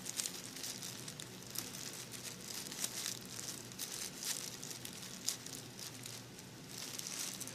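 Packaging being worked open by hand, irregular rustling and clicking as it is pulled and torn at; the package is hard to get open.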